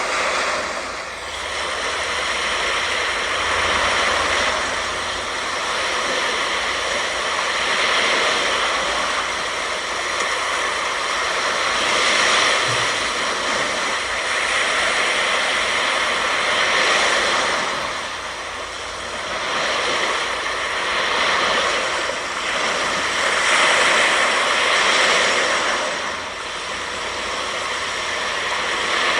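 Ocean surf breaking on a sandy beach, a steady wash of noise that swells and eases every few seconds as waves come in. A faint steady hum of tones runs underneath.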